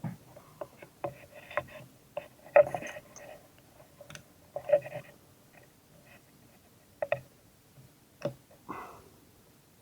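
Irregular small clicks, taps and short scrapes of objects and tools being handled on a workbench.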